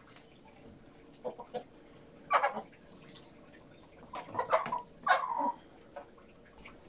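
Domestic hens clucking: a few short clucks about a second in, then louder runs of calls around two and a half seconds and again from about four to five and a half seconds.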